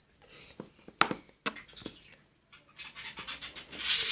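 Thick slime being stirred and handled: a run of short, sticky clicks and wet smacks, with a breathy hiss building near the end.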